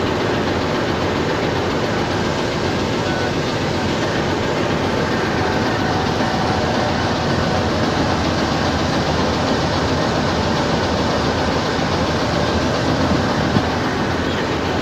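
Pakistan Railways GEU-20 (GE U20C) diesel-electric locomotive idling while standing, heard close alongside: a loud, steady engine run with no change in speed.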